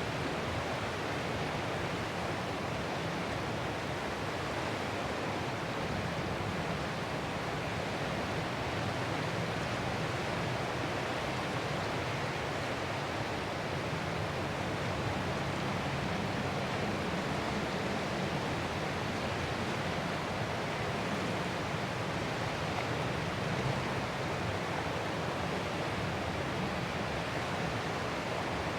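Ocean waves heard as a steady, even rush of surf noise, with no single wave breaks standing out.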